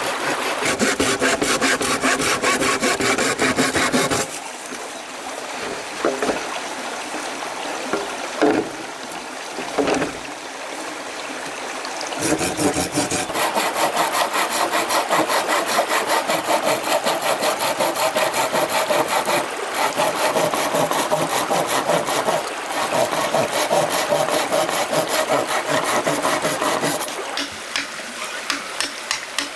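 Hand saw cutting wood in fast, even strokes, in two spells: a short one at the start and a long one from about twelve seconds in. Between them come a pause and a few single knocks.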